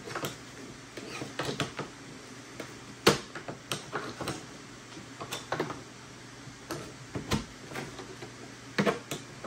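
Irregular metallic clicks and knocks of a hard drive sled in a Mac Pro's drive bay being rocked back and forth and levered with a screwdriver shaft to work it loose. The sharpest knock comes about three seconds in, with two more close together near the end.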